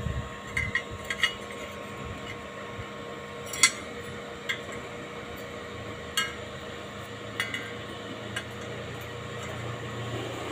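Welded steel brackets clinking and knocking against each other as they are handled: a handful of scattered short clinks, the loudest about three and a half seconds in, over a steady background hum.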